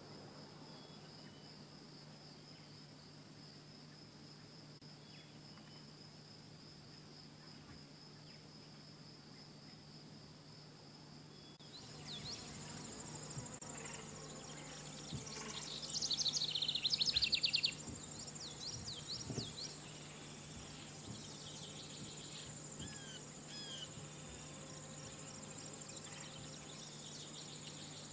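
Insects trilling in a steady pulsing chorus. About twelve seconds in this gives way to a higher, steady insect buzz with scattered bird calls, the loudest a rapid run of bird song a few seconds later. A low steady hum lies underneath.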